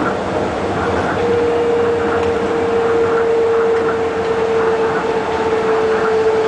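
Train running, with a steady rumble and a motor whine that comes in about a second in and slowly falls in pitch.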